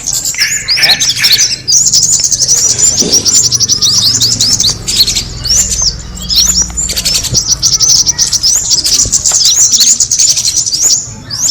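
Kemade bird's lure call: a rapid, near-continuous run of high chirps and twitters, with a short pause near the end.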